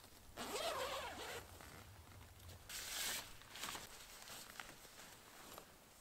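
Hilleberg Soulo tent's door zipper being pulled open in two quick runs, about half a second in and again about three seconds in, followed by smaller scrapes and a few clicks.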